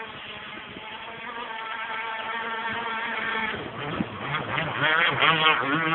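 Radio-controlled petrol boat's Zenoah two-stroke engine running, steady at first, then revving up and down from about halfway through and growing louder.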